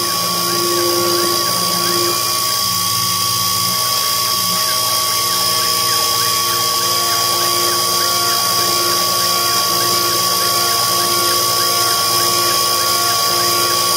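Sherline CNC milling machine's spindle running at about 10,000 rpm while a small carbide tool cuts into 7075 aluminium: a steady high whine with a constant tone.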